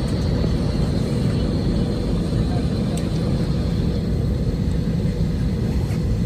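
Jet airliner engines running at low power, heard inside the cabin as the plane taxis: a steady, unbroken rumble with a thin high whine over it.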